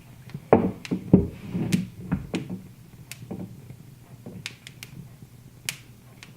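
Wood fire crackling in a fireplace: sharp pops and snaps. They come thick and loud in a short flurry with a few dull thumps about half a second to two seconds in, then thin out to scattered pops over a faint low hum.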